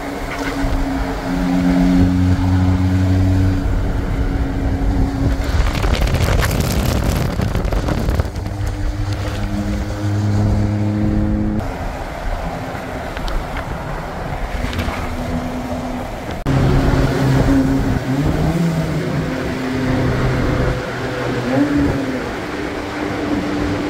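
A car's engine running while driving on the road. Its note holds steady for a few seconds at a time, then jumps to a new pitch several times.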